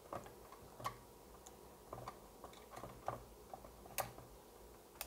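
Faint scattered clicks and light knocks as a power cable and the small case of a DIY video player are handled, about one every second, the sharpest about four seconds in.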